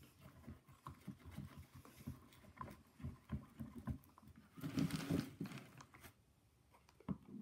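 Hands kneading and squeezing wet, sticky slime, giving an irregular run of small squelches and pops. A louder, longer squish comes near five seconds in.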